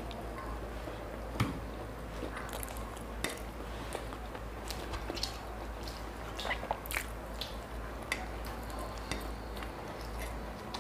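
Two people eating steamed momos and noodles: soft biting and chewing with scattered short wet mouth clicks and smacks, over a steady low hum.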